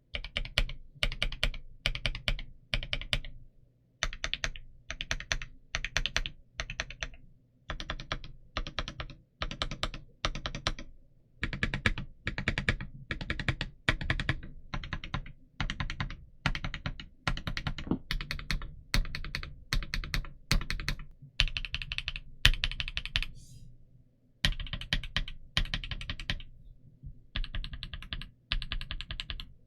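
Typing on a Tiger Lite Gaming V2 mechanical keyboard with Gateron Smoothie switches and Domikey keycaps. Rapid keystrokes come in short runs of about a second, with brief pauses between them.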